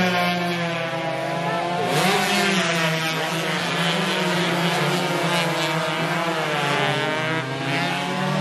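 Several racing motorcycles revving hard as they pass, their engine notes rising and falling and overlapping as the bikes accelerate and brake through a corner.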